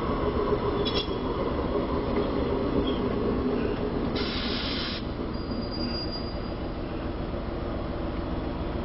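City street traffic with a streetcar running on the tracks: a steady rumble of motors and wheels, a short hiss about four seconds in, then a brief high wheel squeal.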